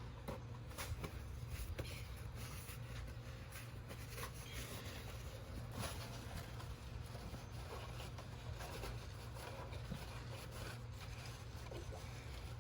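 Faint scattered scraping and clicking of hands and tools working on parts, over a steady low hum.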